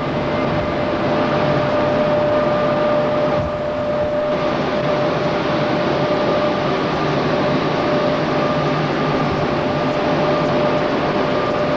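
Steady roar of heavy smelter machinery such as blowers, with a constant whine over it.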